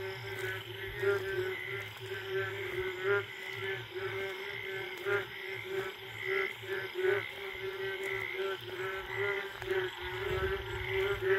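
A dense chorus of frogs calling together at night, several kinds overlapping: a steady pulsing low call and many rapid, higher pulsed calls on top. It is a breeding chorus after the first monsoon rain.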